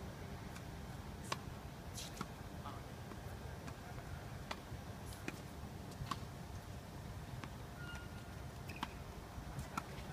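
Tennis ball dropped to bounce on a hard court and struck with a racket, heard as a few scattered sharp pops over a steady low rumble.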